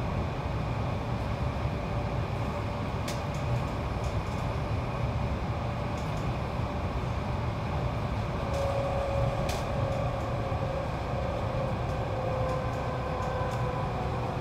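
Hankyu electric commuter train running along the line, heard from inside the front car: a steady rumble of wheels on the track with a faint motor whine that drops slightly in pitch over the last few seconds. There are two sharp clicks, about 3 and 9.5 seconds in.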